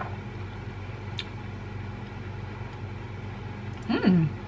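A woman's closed-mouth "hmm" near the end, its pitch dropping and then rising as she tastes a spoonful, over a steady low electrical-sounding hum; a faint click about a second in.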